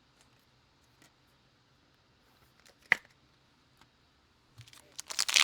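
Quiet room with one sharp click about three seconds in, then a few faint rustles and light clicks near the end.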